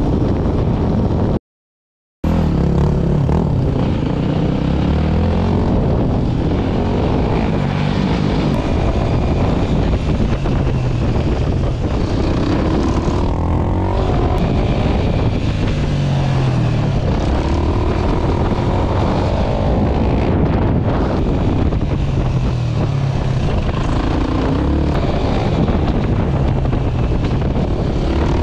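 Single-cylinder Yamaha WR250R engine heard from the rider's helmet camera, revving up and down again and again as the bike is ridden on the rear wheel, with wind rushing over the microphone. The sound cuts out completely for about half a second near the start.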